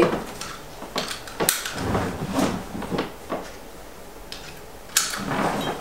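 Three-point seatbelt being fastened: scattered sharp clicks of the metal tongue and buckle latching, with rustling of the belt webbing, and a louder shuffle about five seconds in.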